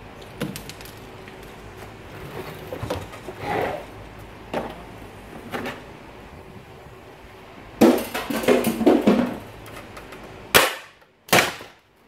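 Plastic casing panels of an air-conditioning unit clicking and knocking as they are pulled off and handled, with a burst of clattering about eight seconds in. Two sharp, loud snaps come near the end.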